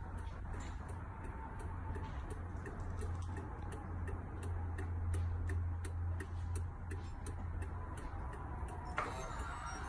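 Turn-signal flasher ticking steadily while the Escalade power mirror's LED turn-signal arrow blinks, over a low steady hum; the ticking stops with a sharper click near the end.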